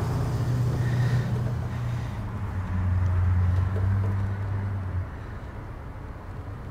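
A low, steady vehicle engine hum that grows louder a little past two seconds in and drops away about five seconds in.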